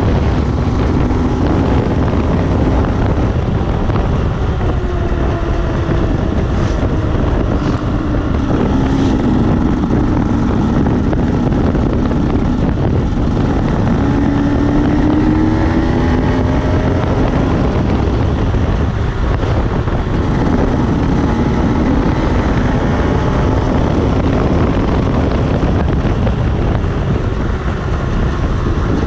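Enduro dirt-bike engines revving, their pitch rising and falling as the throttle opens and closes, over heavy wind noise on the microphone.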